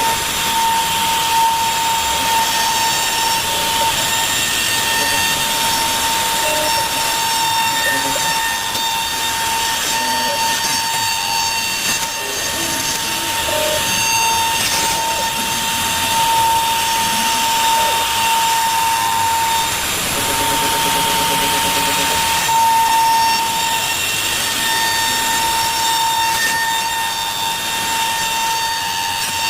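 CNC router spindle running with a steady high whine over a hiss of chips as the bit clears wood in a rough clearance pass. About two-thirds of the way through, the whine falters for a couple of seconds and a lower buzz comes in.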